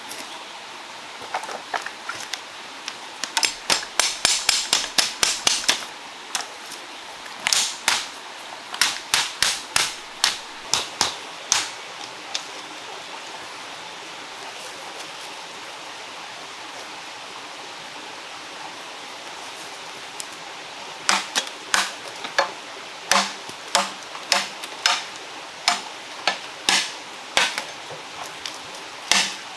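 A knife striking and chopping bamboo in runs of sharp knocks: a quick flurry a few seconds in, slower blows until about twelve seconds, a pause, then strikes about twice a second from about twenty-one seconds on.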